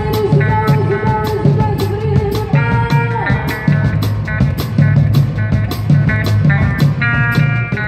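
Live band music: electric guitar and electric bass over a steady beat, with the ardine harp plucked. Long held notes sound through the first three seconds.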